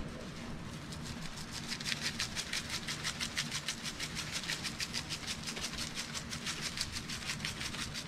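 Lemon pepper seasoning shaken from a plastic shaker bottle: a fast, steady rattle of about six shakes a second, growing stronger after the first second, over a faint low hum.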